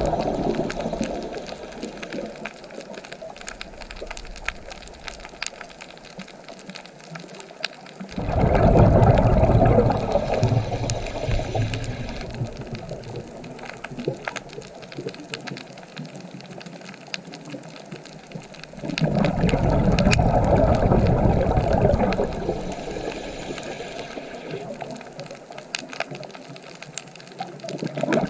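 Ocean waves breaking and washing in. Each surge comes in suddenly, then fades over several seconds, about every ten seconds.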